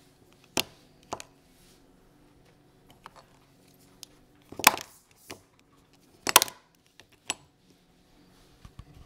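Silver bullion bars in hard clear plastic cases clicking and clacking as they are handled. There are a few separate sharp knocks, with the loudest clusters about four and a half and six and a half seconds in.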